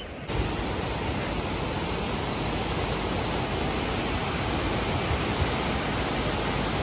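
Waterfall: a steady, dense rush of falling water that cuts in abruptly just after the start.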